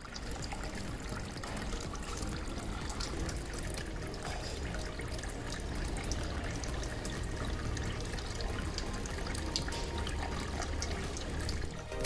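Water pouring and trickling steadily from a floating-tap fountain, running down its clear acrylic column into the pot's basin below.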